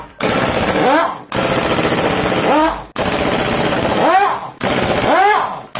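A rapid mechanical rattle, like a powered tool, running in repeated bursts of roughly a second. Each burst ends with a rising-then-falling whine and cuts off abruptly before the next begins.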